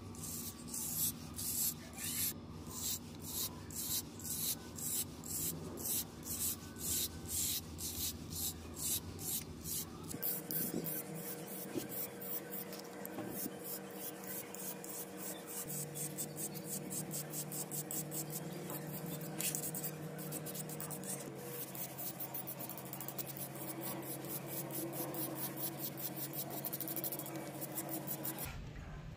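Stiff hand brush scrubbing caked dried mud off a rusty antique revolver, at first in separate strokes about two a second, then from about ten seconds in as faster, continuous scrubbing.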